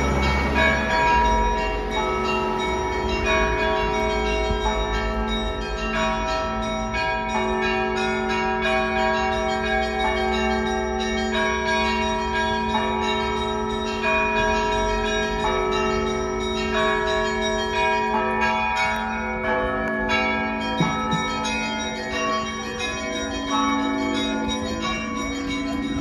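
Church bells ringing a continuous peal: many bells of different pitches struck in quick succession, each tone ringing on under the next strikes.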